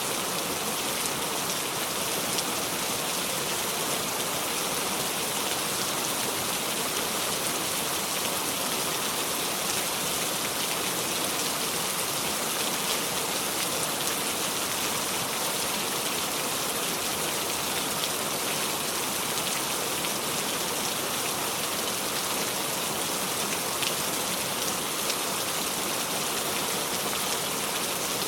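Steady heavy rain falling and pattering on surfaces, a constant hiss with scattered drop ticks and no thunder.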